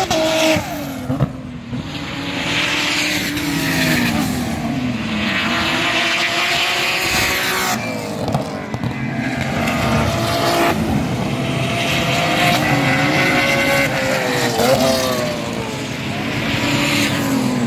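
Racing cars passing one after another at speed, several engines heard at once, each rising and then falling in pitch as it goes by.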